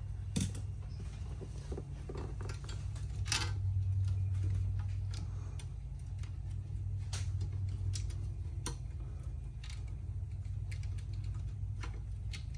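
Scattered light clicks and taps as hands handle a sealed lead-acid battery pack in its metal bracket and move its wires, over a steady low hum.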